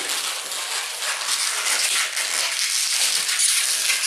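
Inflated white latex modelling balloon being twisted in the hands into small bubbles and an ear twist: a continuous crackly rubbing of latex against latex.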